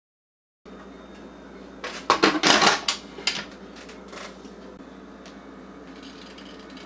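Metal lid of an electric pressure cooker clattering and clicking as it is set on and locked shut, about two seconds in, followed by a couple of lighter clicks.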